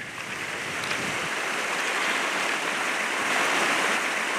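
Rushing mountain creek: a steady wash of fast water over rocks, fading in over the first second and then holding.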